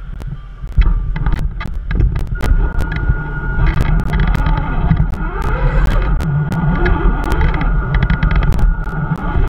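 Small RC crawler driving, its electric motor giving a steady whine from about two seconds in, over a low rumble and many sharp clicks and knocks.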